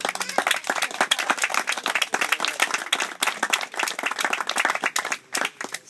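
A group of people applauding: a dense run of hand claps that starts suddenly, thins out near the end and stops.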